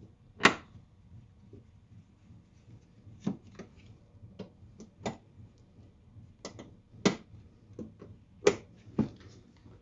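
Plastic retainer clips being pushed into the panel under the windshield, a series of about eight sharp snaps and clicks at uneven intervals, the loudest about half a second in and near the end.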